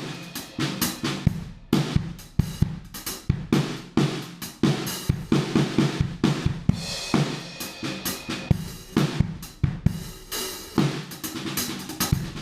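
Drum kit being played, a busy run of strikes throughout.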